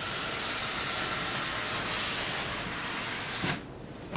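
Cardboard box sleeve sliding along a styrofoam inner box, a steady scraping hiss that stops suddenly about three and a half seconds in as the sleeve comes free. A light knock comes near the end.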